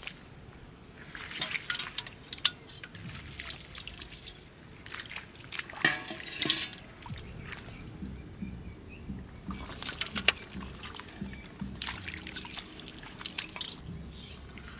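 Shallow muddy water sloshing and splashing as a metal bowl scoops it up and pours it out, in several separate bursts of splashes with sharp clicks.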